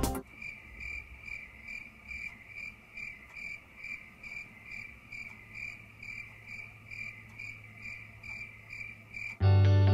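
Cricket chirping in an even pulse of about two chirps a second: the stock cricket sound effect for an awkward silence when nothing happens. Loud guitar music cuts back in near the end.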